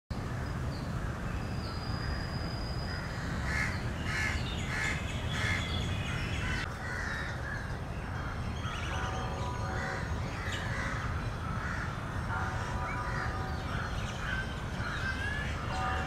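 Crows cawing: a run of about five evenly spaced caws a few seconds in, then more scattered calls, over a steady low rumble.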